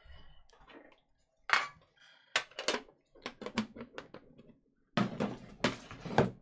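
Metal card tin and its lid clattering as they are handled and set down on a table: a few sharp knocks, then a busier run of clanks near the end.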